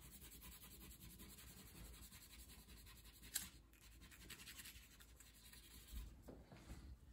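Faint scratching of wax crayon being worked over paper, with a single light tap about three and a half seconds in.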